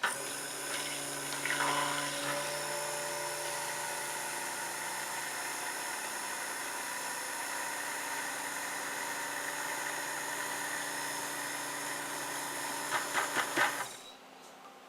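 Stick blender running steadily in a pot of soap oils and lye water, with a few knocks near the end, then switched off suddenly about fourteen seconds in.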